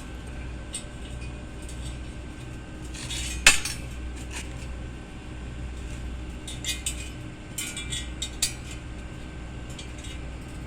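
Metal pieces clinking and tapping against each other as they are handled: scattered sharp clinks, one loud strike about three and a half seconds in and a quick run of clinks later on, over a steady low hum.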